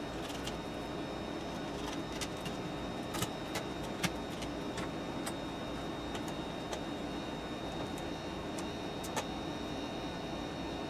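Scattered light clicks and taps, the sharpest about four seconds in, over a steady background hum with a faint high whine.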